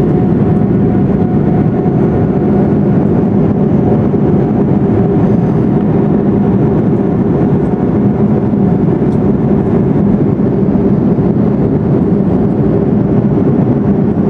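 Steady, deep cabin roar of an Airbus A340-600's Rolls-Royce Trent 500 engines and rushing airflow as the jet climbs after takeoff, with a steady low hum under it.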